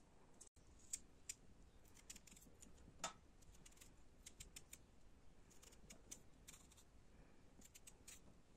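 Small knife paring the skin off a raw potato: quiet, quick, irregular crisp cuts and scrapes, with one louder click about three seconds in.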